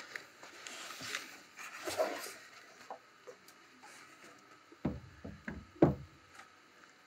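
Creality Halot Sky resin 3D printer, a heavy metal machine, lifted and set down on a wooden workbench: two dull thumps about a second apart, past the middle, after soft rustling of plastic and styrofoam packing.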